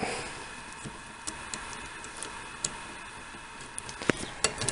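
Faint, irregular metallic clicks of a hand-cut key being seated and turned in a Flex-Ace tubular lock, about half a dozen in all, the loudest a little after four seconds in.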